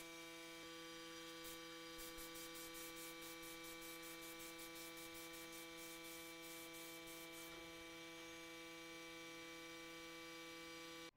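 Faint, steady electrical mains hum, a buzzy stack of unchanging tones, that cuts off suddenly near the end.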